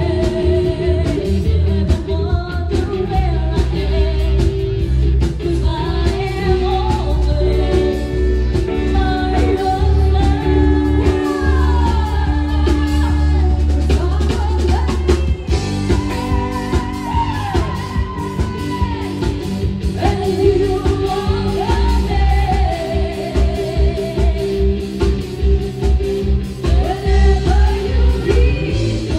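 Live band performance: two women singing a duet over a band with bass guitar, amplified through a PA system and heard from the audience floor.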